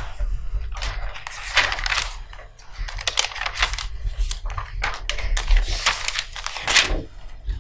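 Irregular clicks and short rustles close to the microphone, like typing or handling paper and objects, over a low hum.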